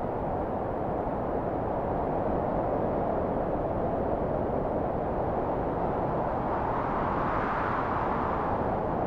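Processed storm wind sound effect: a steady low rushing wind with slow, gentle swells and no gusting peaks.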